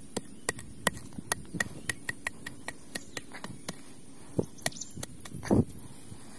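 A run of sharp, irregular clicks or taps, about three to four a second, with two heavier thumps near the end, the second the loudest.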